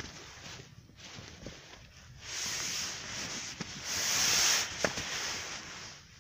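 Rustling, rubbing noise in two stretches, the louder one about four seconds in, with a few faint ticks.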